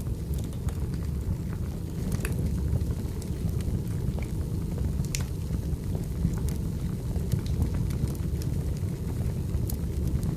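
Wood fire burning, with a steady low rumble and scattered sharp crackles and pops at irregular moments.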